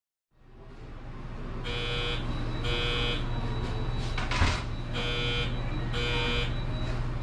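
Electronic ringing or beeping in short bursts, coming in pairs about a second apart with a longer pause between pairs, over a steady low hum that fades in after a moment of silence. A single sharp knock falls about halfway through.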